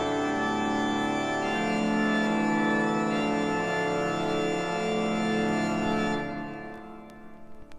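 Organ playing full sustained chords that shift several times, then released about six seconds in, the sound dying away in reverberation, with a few faint vinyl surface clicks near the end.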